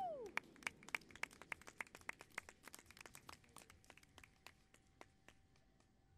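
Scattered hand-clapping from a few spectators, quick at first, then thinning out and fading over about five seconds.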